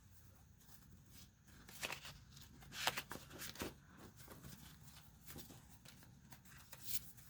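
Faint, scattered rustling and light taps of paper and packaging being handled, with a few louder crinkles between about two and four seconds in.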